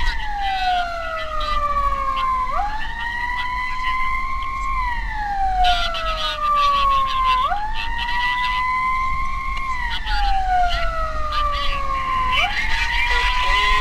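Emergency vehicle siren wailing in a slow cycle. The pitch jumps up, holds for about two seconds, then slides down over about two and a half seconds, three times over.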